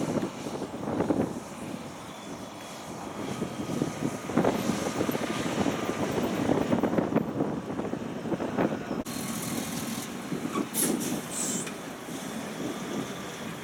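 Diesel engine and tyres of a heavy logging truck and trailer, loaded with logs, running past, with a sudden change in the sound about nine seconds in.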